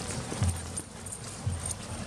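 Footsteps of a person walking on a dirt path: low, dull thuds about once a second.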